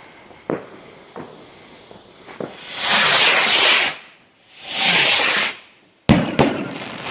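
Firework rockets: a few faint pops, then two rockets launching with a loud hiss about a second long each. Near the end come sharp bangs and crackling of bursts.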